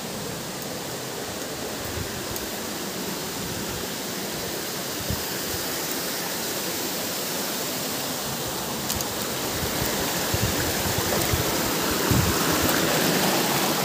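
Rushing water of a stream or waterfall, a steady hiss that grows gradually louder, with a few faint knocks underneath.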